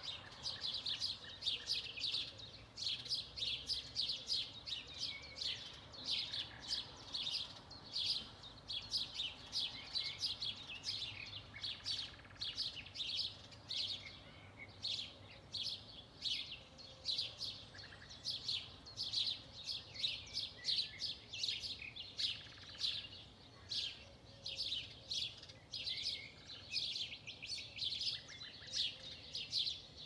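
Dawn chorus of several songbirds: a dense, unbroken stream of quick high chirps and twitters, several a second, overlapping from more than one bird.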